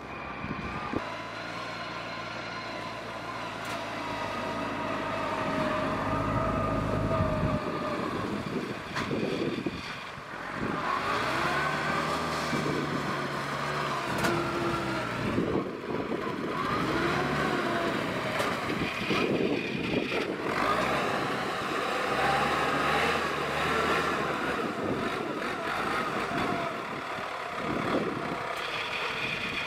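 Engine of a homemade crawler carrier built from a converted rice harvester, running under load, its pitch rising and falling again and again as the machine works through mud and water.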